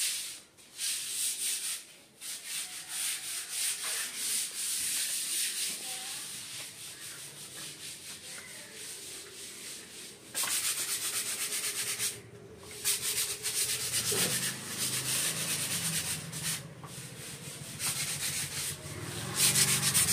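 Sandpaper rubbed by hand over a plastered wall in quick, continuous strokes, with a few brief pauses. This is the wall being prepared for a coat of primer.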